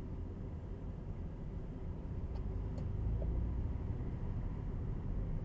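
Steady low road and engine rumble of a car driving slowly, heard from inside the cabin, swelling a little about three seconds in, with two faint ticks near the middle.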